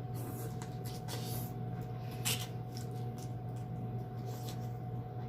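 Mukbang eating sounds: a few short wet smacks and clicks of chewing and handling sauce-covered seafood, over a steady low electrical hum.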